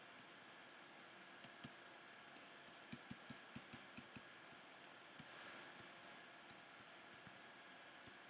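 Faint clicking of keys being pressed, with a quick run of about seven clicks around three to four seconds in and a few single clicks before and after, over near-silent room tone.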